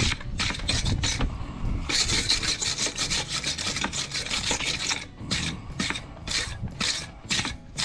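Hot forge-welded steel being scrubbed clean with a wire brush: quick back-and-forth scraping strokes, running together into steady scrubbing through the middle, then separate strokes at about three a second near the end.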